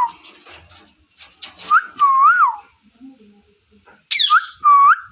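Pet parrot giving loud whistled calls: a pair of drawn-out whistles about two seconds in, then a sharp, steeply falling squeak near the end followed by two more short whistles.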